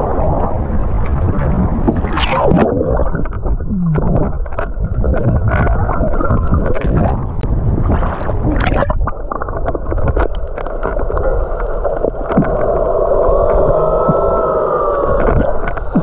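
Sea water sloshing and gurgling around a waterproof action camera at the surface, with a low, wavering moan that bends up and down over the last few seconds: the weird sound the snorkelers are asking about.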